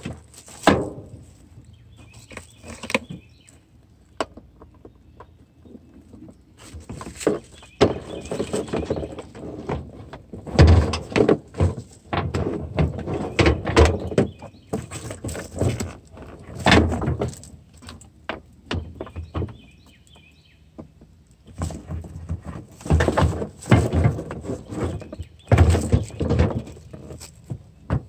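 Hand work on car parts around a headlight mount: irregular knocks, clatters and scraping as a part is pried and pulled off to clear the headlight. The noise comes in bursts, busiest in the middle and near the end.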